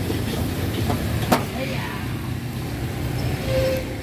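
An engine running steadily with a low hum. There is a single sharp clack about a second in.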